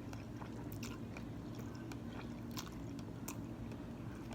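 A person chewing and biting takeout noodles close to the microphone, with scattered small mouth clicks over a steady low hum.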